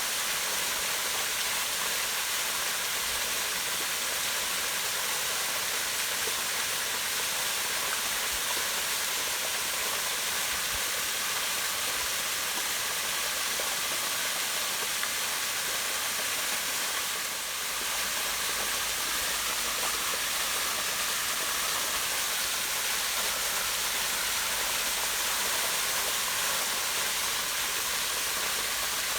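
Small waterfall pouring down a rock face into a pond: a steady, even rush of falling water, dipping briefly about two-thirds of the way in.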